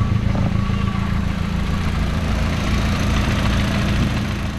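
VW Mk4 1.8T turbocharged four-cylinder engine idling steadily just after being started on a new starter.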